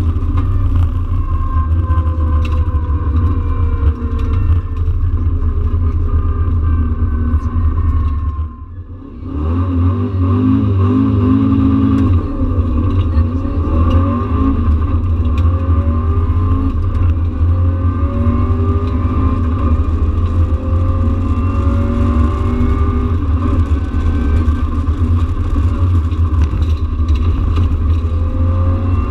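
Subaru Impreza rally car's engine heard from inside the cockpit at full stage pace, its pitch climbing and falling through the gears. The engine sound drops away for about a second around eight seconds in, then comes back hard.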